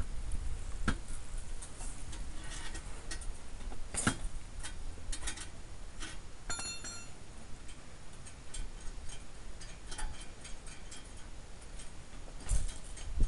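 Scattered light clicks and metallic clinks as the exhaust backbox and its mountings are handled by hand under the rear bumper, with a sharper knock about four seconds in and a brief ringing clink a couple of seconds later.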